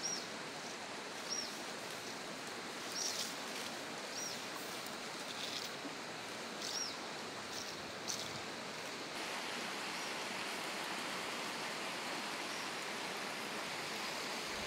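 Steady rush of flowing river water, with a small bird repeating a short high chirp about every second and a bit, until about nine seconds in. Faint rustles of nylon net line being handled now and then.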